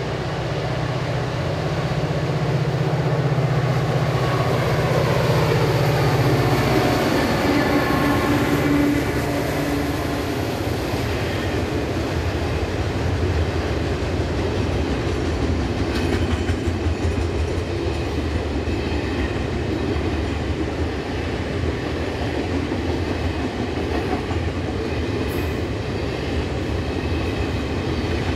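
EMD JT26C-2SS diesel locomotive, a 16-cylinder turbocharged 645 engine, working under power as it passes. Its low drone is loudest in the first few seconds and falls in pitch as it goes by. After that, the wagons roll past with a steady clickety-clack of wheels on the rails.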